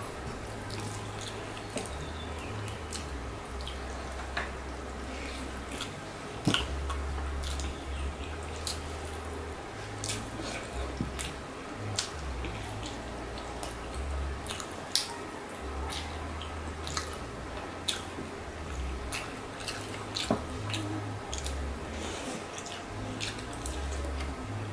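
Close-up eating by hand: chewing and wet mouth clicks, with squelching of curry-soaked rice as fingers mix it and a boiled egg is bitten. Many sharp clicks throughout, over a low hum that comes and goes.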